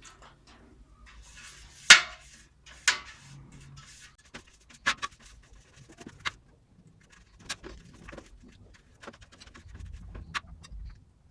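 Irregular sharp knocks and clinks from hard objects being handled. The loudest comes about two seconds in, another a second later, then lighter ones spaced a second or more apart.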